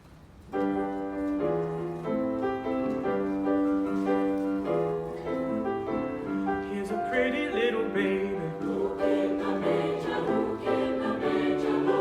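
Music: an introduction of held keyboard chords, joined about seven seconds in by a group of voices singing.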